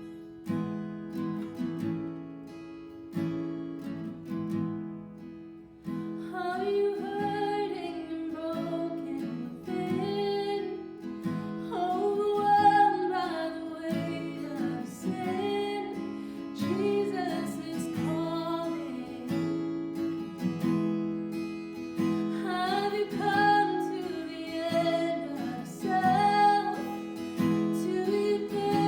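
Acoustic guitar strummed on its own for about six seconds, then a voice sings over it, breaking off briefly about two-thirds of the way through before coming back in.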